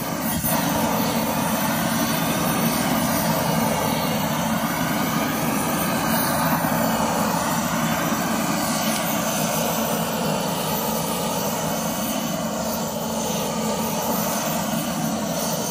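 Handheld propane torch running with a steady loud rushing flame as it sears butter-topped ribeye steaks, the butter sizzling underneath. The tone of the rush wavers slowly, about once every two seconds.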